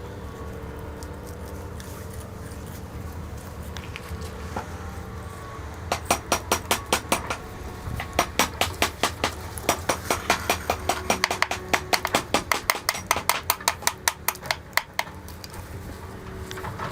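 A rapid series of sharp knocks, about five a second: a short run about six seconds in, then a longer run from about eight seconds in that stops near the end. A steady low hum runs underneath.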